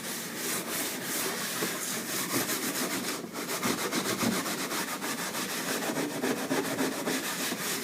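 Steel wool scrubbed back and forth over an oak floor in quick strokes, a steady rasping rub with a brief pause about three seconds in. It is lifting dirt and paint drips off the floor's surface.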